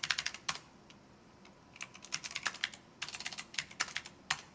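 Computer keyboard typing in three quick runs of keystrokes, with a pause of about a second after the first run.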